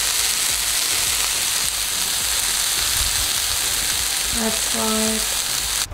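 Food frying in a pan, sizzling steadily.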